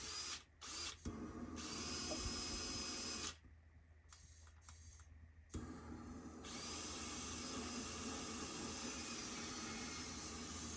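Steady hissing noise from a handheld tool running in spells: it stops briefly about a second in and again for about two seconds in the middle, then runs steadily on.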